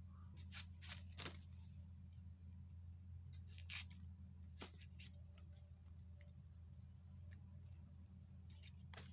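Bush knife cutting and peeling the outer layers off a young banana shoot: a scatter of short sharp cuts and snaps, the loudest about four seconds in, over a steady high insect trill.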